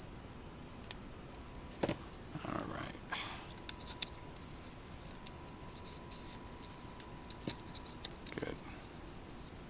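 Scattered light clicks and taps of small RC car parts being handled and fitted by hand, with a short rustle about two and a half seconds in and a faint steady tone through the middle.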